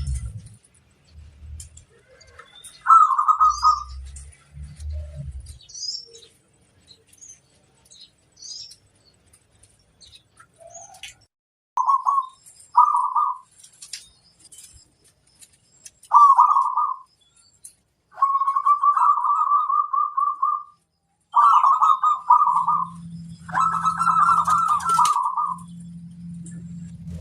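Zebra dove (perkutut) cooing: about seven rapid, trilled coo phrases, the first few short and the later ones drawn out to a second or two. Faint high chirps of small birds come between them, and a low hum sets in near the end.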